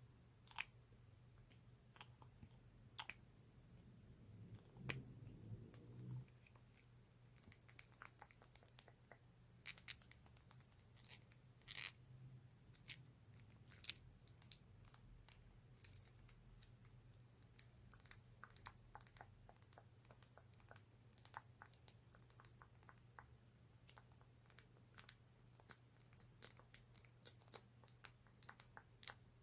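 Irregular, quick tapping and clicking on a lip gloss container, at first sparse and then denser, with a short stretch of low handling noise early on.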